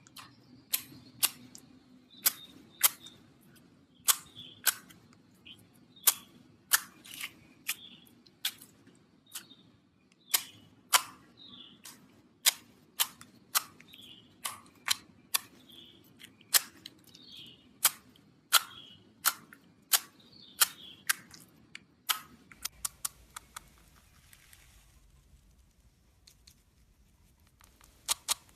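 Slime being pressed and stretched by hand, making sharp clicking pops as trapped air bubbles burst, often in pairs and about one to two a second, with soft squishing between them. Past the middle the clicks come quicker for a moment, then give way to a quieter stretch with a faint hiss before resuming near the end.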